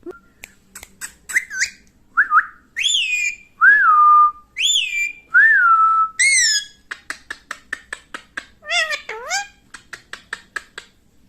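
Parrot whistling: a string of loud whistles that each sweep up and then fall or level off, interspersed with rapid clicks and short chirps, and one low dipping-then-rising whistle near the end.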